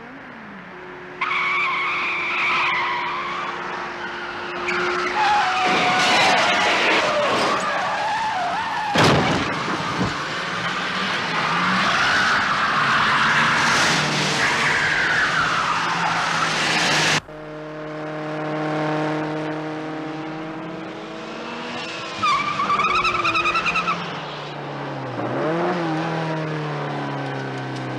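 Tyres squealing and skidding hard as a car, a first-generation Toyota Soarer among them, is driven flat out, with the engine revving high; a long skid cuts off abruptly about two-thirds of the way through. After the cut the engine revs rise and fall and the tyres squeal briefly once more.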